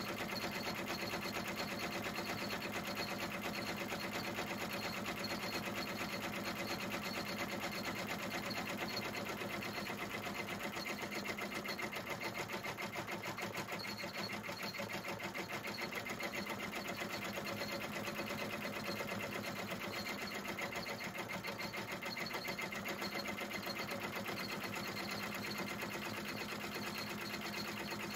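Multi-needle embroidery machine stitching steadily, its needle strokes in a fast, even rhythm.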